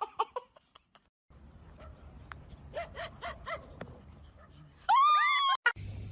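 Dog yipping: a quick run of about five short yips near the middle, then one louder, longer call about five seconds in.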